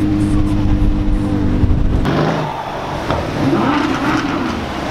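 Audi R8's V10 engine running steadily as the car rolls slowly by. About two seconds in, this gives way to a Mercedes-AMG SUV's twin-turbo V8, its note rising and falling in pitch.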